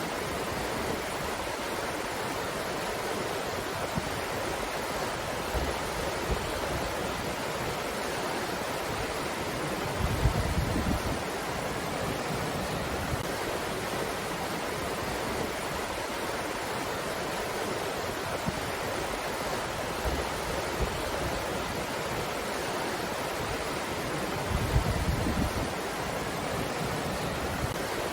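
Steady rushing wind. Two stronger gusts buffet the microphone with low rumbles, about ten seconds in and again about twenty-five seconds in.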